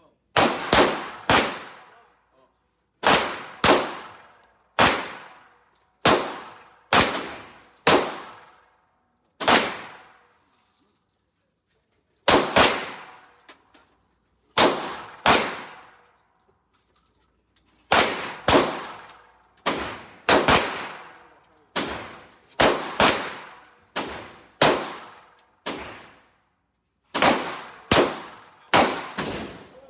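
Gunfire: dozens of shots at an irregular pace, some single and many in quick pairs or triples, each with a short echoing tail.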